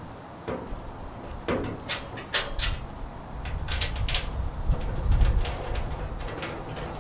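Metal clinks and taps, a dozen or so scattered knocks, as the grill's chimney and its screws are handled and set against the grill's body, over a low steady rumble that comes in about two and a half seconds in.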